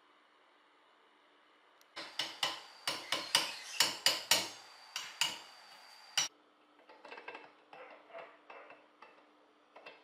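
Hammer blows on an old Homelite chainsaw engine, about a dozen sharp metal knocks at roughly four a second starting about two seconds in, to knock the flywheel loose from the crankshaft. Lighter metal clinks follow as the parts are handled.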